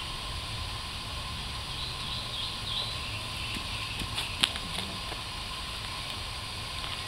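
A screwdriver poking and scraping in soil, a few faint scrapes and one sharper click about four and a half seconds in, over a steady low background rumble. A bird chirps a few times around three seconds in.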